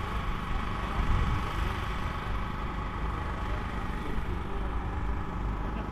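Diesel tractor engine idling steadily with a low, even rumble.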